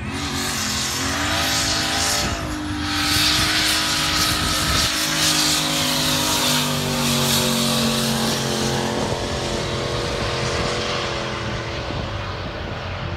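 Turbocharged LS1 V8 of a Holden VY Commodore SS held high in the revs during a powerskid, the rear tyres spinning and squealing in a loud hiss. The engine note climbs in the first two seconds, then holds with its pitch slowly sagging, and fades under the tyre noise near the end.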